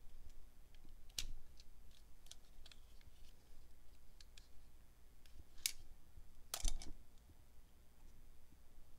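Scattered light plastic clicks and taps from a DJI Osmo Action camera and its plastic mount pieces being handled; the loudest, a click with a dull knock, comes about two-thirds of the way through.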